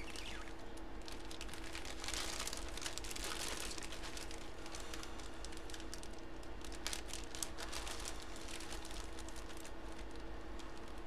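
Plastic bag crinkling and rustling as it is handled, loudest about two to four seconds in, with scattered small clicks over a steady low hum.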